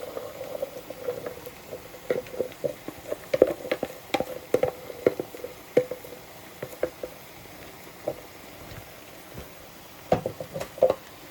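Chopped vegetables going into a pan of frying mince and onion: an irregular patter of pieces landing, with scattered taps and clatters, busiest in the first half and again near the end.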